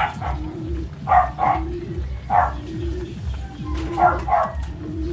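Animal calls in short bursts a second or so apart, with low rhythmic thumping underneath.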